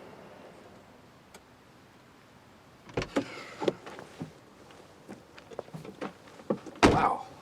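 Car door sounds: a few clicks and knocks about three seconds in, then one heavy slam near the end.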